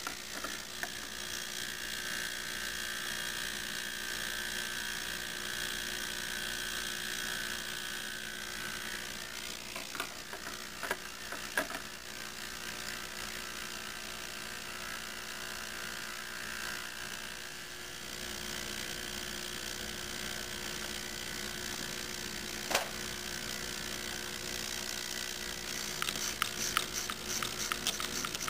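Ultrasonic cleaner running with a pistol frame submerged in its tank: a steady buzz. Scattered clicks come about ten to twelve seconds in, a single sharp click follows a little later, and a flurry of rapid clicks comes near the end.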